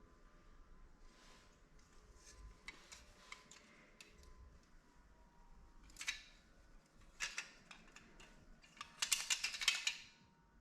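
Clipper guards being handled, with light clicks and rattles. There are sharper clicks about six and seven seconds in, and a quick run of rattling clicks near the end.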